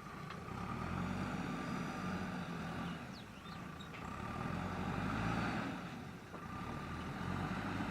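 JCB backhoe loader's diesel engine running under working load, its note swelling and easing every couple of seconds, with a steady high whine running alongside.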